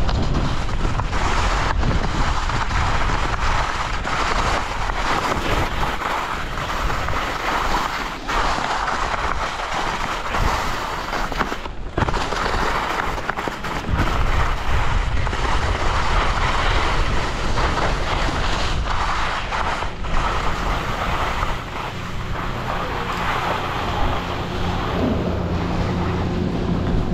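Skis scraping and hissing over chopped snow on a downhill run, with wind buffeting the microphone. Near the end a steady low hum comes in from the chairlift terminal's machinery.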